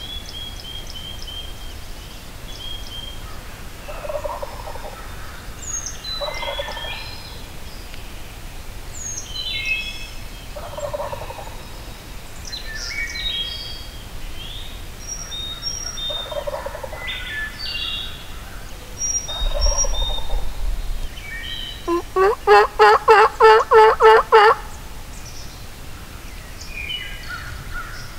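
Wild turkey gobbling about five times, under a steady chorus of songbirds chirping. Near the end comes a loud run of about eight evenly spaced turkey yelps.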